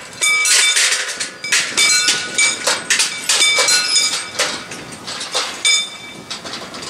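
Mechanical bells on the barrier drives of a crank-operated level-crossing barrier ringing with rapid, uneven strikes as the barrier arms come down. The ringing stops almost six seconds in.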